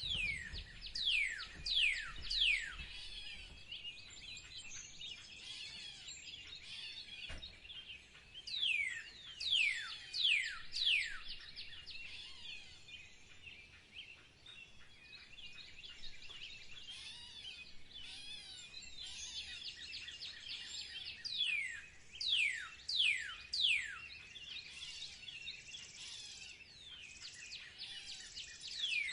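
Birds singing in spring: a constant chorus of small chirps and twitters, over which a louder bird gives a series of about four falling whistles, repeated about every ten seconds.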